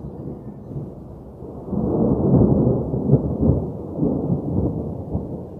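Recorded thunder rumbling low and deep, swelling louder about two seconds in.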